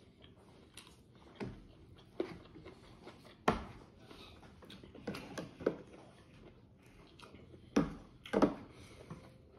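Close-miked eating sounds of a mukbang: chewing and mouth noises with scattered sharp clicks and knocks. The loudest knocks come about three and a half seconds in and twice near the end.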